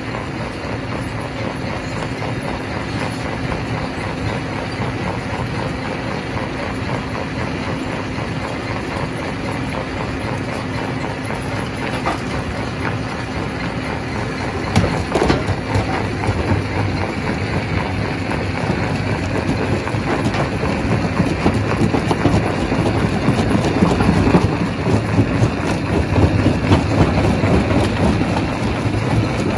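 Rock crusher running, with a steady low machine hum under a continuous rattle and clatter of rock. About halfway through it grows louder and busier, with a sharp knock and heavier irregular clattering.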